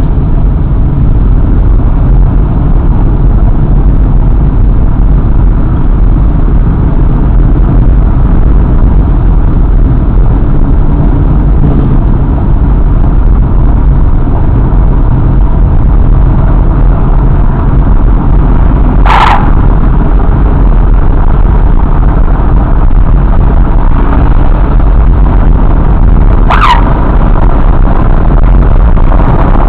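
Motorcycle riding at road speed: a loud, steady rumble of engine and wind on the microphone. Two brief, sharp high-pitched sounds cut through, one about two-thirds of the way in and one near the end, the second falling in pitch.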